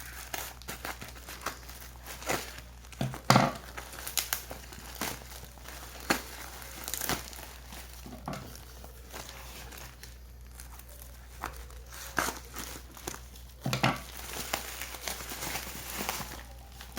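Packaging being handled and torn open: irregular rustles and crackles, with louder sharp noises about three seconds in and again near fourteen seconds.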